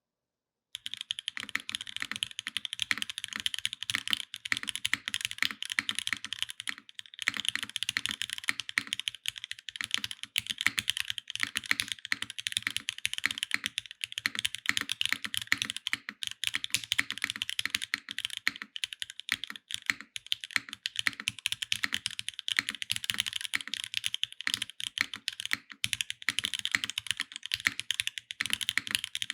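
Fast, continuous typing on a Hand Engineering Haus 65% custom mechanical keyboard. It has Gateron X linear switches lubed with Krytox 205g0 and filmed, an aluminium top-mounted plate and GMK ABS keycaps. Typing starts under a second in, and there is a brief pause about seven seconds in.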